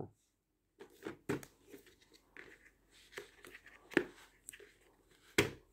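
A plastic VHS tape case being handled on a carpeted floor: scattered light clicks and knocks, the sharpest about four seconds in and again near the end.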